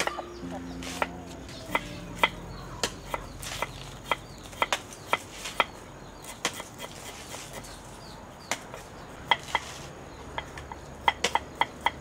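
Cleaver slicing galangal and turmeric on a thick round wooden chopping block: sharp, irregular knocks of the blade striking the wood, with quicker runs of strokes near the end.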